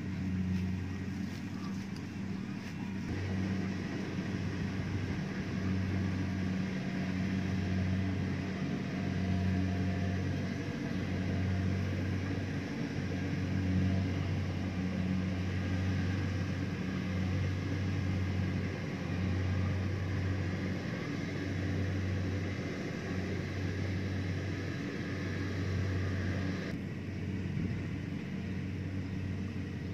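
Diesel engine of a rice combine harvester running steadily at work in the field, a low hum that swells and fades about every two seconds. A hiss over it drops away near the end.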